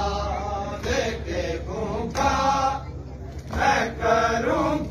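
Male voices chanting a noha, a Shia mourning lament, in long held lines, with a sharp slap about every second and a half from mourners beating their chests (matam).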